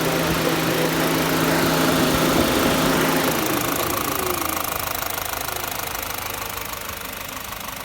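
An engine running steadily at idle; after about three seconds its hum breaks up and the sound slowly fades.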